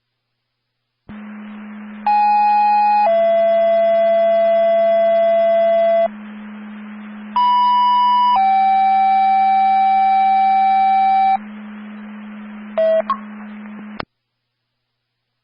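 Two-tone sequential paging tones sent over a fire dispatch radio channel, heard through a scanner. There are two pages: each is a one-second higher tone stepping down to a lower tone held for about three seconds, over the steady low hum and hiss of the open channel. A short chirp comes near the end, just before the transmission cuts off.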